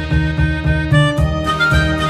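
Background music with a steady, bouncy beat and held melody notes.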